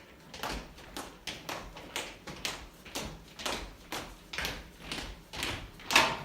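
Regular sharp taps, about two a second, with one louder knock near the end.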